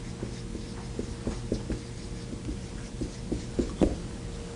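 Handwriting during a lecture: short, irregular taps and scrapes of strokes being written, over a faint steady hum.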